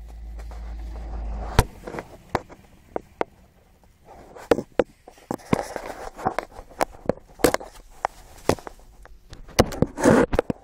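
Irregular sharp clicks, knocks and rustles of a handheld camera being moved around. A low steady hum cuts off with a loud click about one and a half seconds in.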